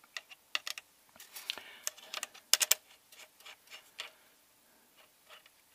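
Scattered small plastic clicks and taps from drone propellers and motor parts being handled and fitted, with a quick cluster of sharper clicks about two and a half seconds in.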